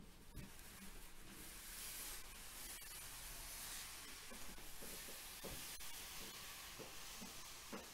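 Faint rustling hiss of backing paper being peeled away from a sheet of frisket masking film, with a few light ticks as the film comes free.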